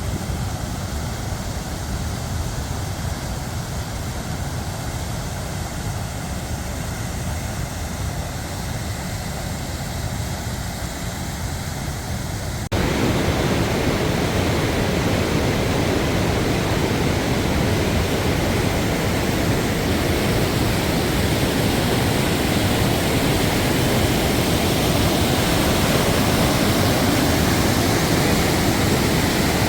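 Swollen floodwater rushing after heavy rain. At first it is a low rumble; after an abrupt cut about thirteen seconds in, it becomes a louder, fuller rush of water.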